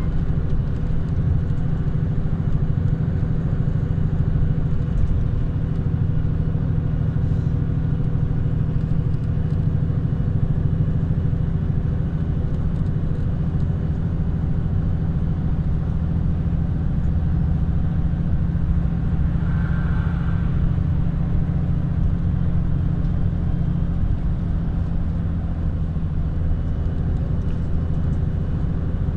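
Steady low rumble of engine and road noise from a vehicle driving at speed along a highway. A brief faint higher tone cuts in about two-thirds of the way through.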